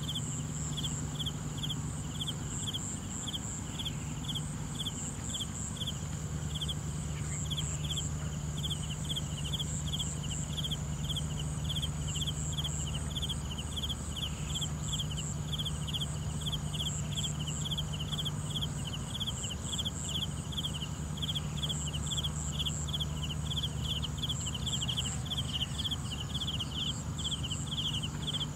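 Insects chirping in a field: a steady high-pitched buzz with a rhythmic series of quick chirps repeating without a break. A low steady hum runs underneath.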